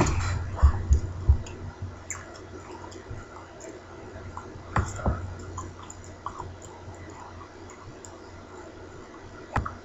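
Computer mouse clicks and small desk handling noises over a low room hum, with a few soft thumps in the first second and a half, a quick double click about five seconds in, and another click near the end.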